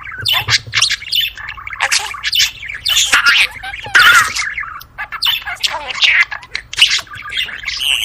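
Budgerigars warbling and chattering: a dense, continuous stream of short squawks, chirps and twittering calls from several birds.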